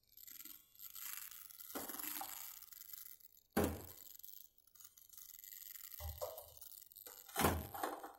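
Water being poured into a stainless steel wok, then three knocks, the last as slabs of palm sugar are dropped into the water.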